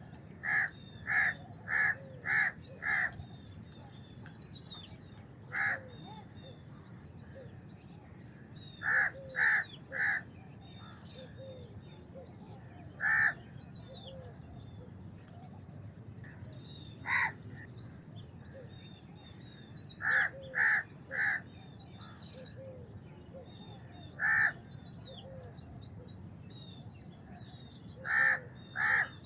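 House crow cawing: short, harsh caws in bunches of one to five, with pauses of a few seconds between bunches. Small birds twitter faintly and continuously behind them.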